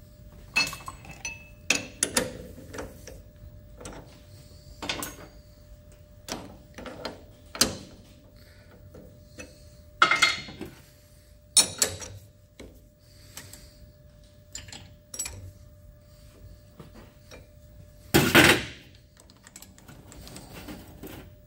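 Irregular metallic clanks, clicks and knocks of tools and parts being handled at a metal lathe while it is set up for the next cut. The loudest is a longer clatter near the end, and a faint steady hum runs underneath.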